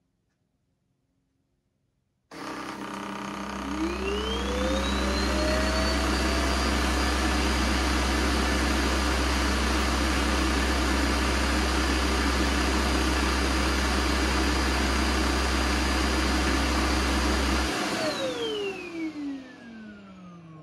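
Ecovacs Deebot D77 self-emptying station's suction motor switching on about two seconds in, its whine rising as it spins up, then running steadily as it draws dust out of the docked robot's bin. It shuts off near the end, the whine falling as the motor spins down.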